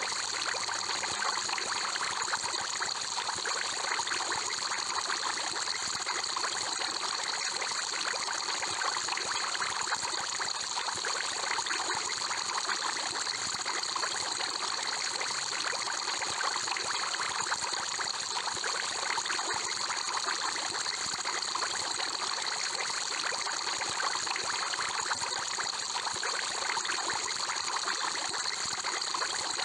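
Aquarium water bubbling and trickling steadily, with a dense patter of many small bubbles, as from an air-stone bubble column.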